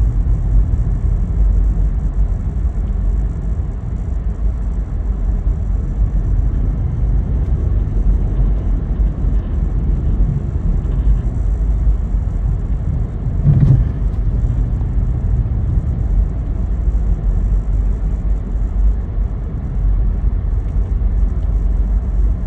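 A vehicle driving along: a steady low rumble of road and engine noise, with one brief louder thump about halfway through.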